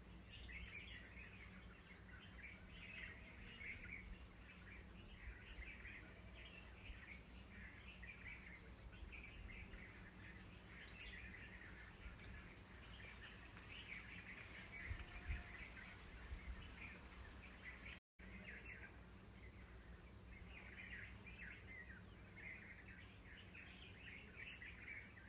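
Faint, continuous chirping and twittering of many small birds over a low background rumble, with a few soft low thumps about fifteen seconds in. The sound cuts out completely for a moment about two-thirds of the way through.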